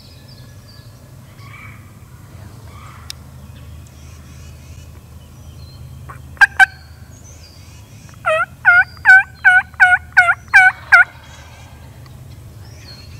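Turkey yelping: two short, sharp clucks about six and a half seconds in, then a run of about eight yelps in quick succession lasting some three seconds.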